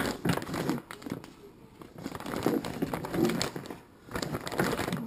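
Packaging crinkling and rustling as bungee gear is handled and unpacked, starting with a sharp click.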